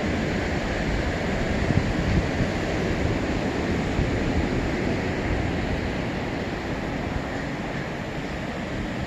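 Steady, even rush of ocean surf and wind.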